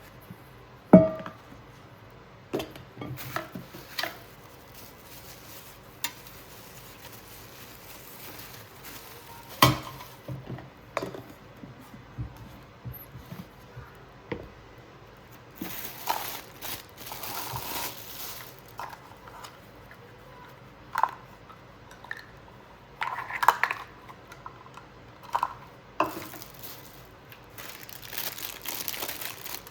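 Stainless steel mixing bowls and their parts being handled: scattered clanks and knocks of metal set down and nested, two of them sharp, with stretches of packaging rustling.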